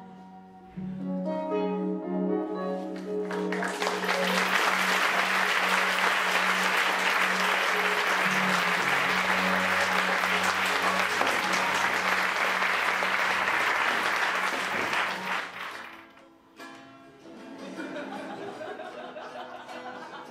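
A song's closing instrumental notes over a held low note, then audience applause for about twelve seconds that fades away; near the end an acoustic guitar is plucked.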